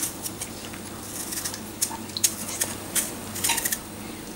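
Small knife peeling the skin off an apple cucumber: a string of short, crisp slicing and scraping sounds at an irregular pace, with a couple of longer rasping strokes.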